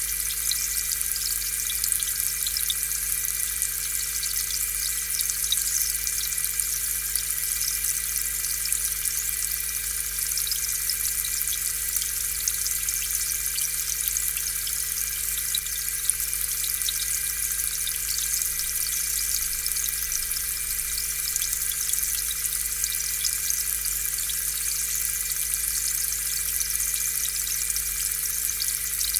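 Aquarium air pump running steadily, with a constant hum under a dense fizz of air bubbles popping at the water surface.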